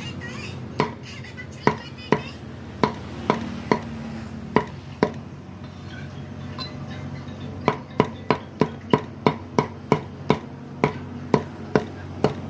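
Knife chopping on a cutting board: scattered single chops at first, then a quicker run of about three chops a second in the second half, over a steady low hum.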